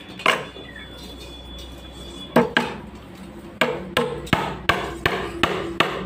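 Hammer blows: a single strike near the start, another about two and a half seconds in, then a steady run of about three strikes a second, each with a short ringing tail.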